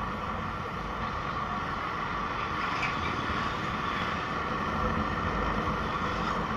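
Motorcycle engine running as the bike rides along a paved street, with steady road and wind noise.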